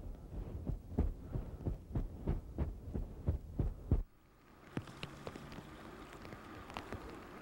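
Irregular dull low thumps, about three a second. About four seconds in they stop suddenly, leaving a quieter stretch with a few scattered light clicks.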